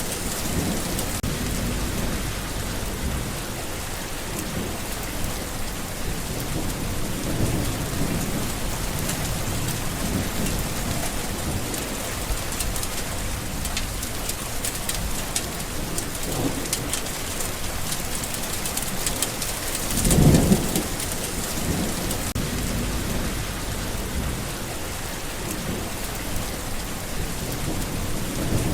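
Steady heavy rain falling on surfaces, with a few low rumbles of thunder; the loudest rumble comes about two-thirds of the way through.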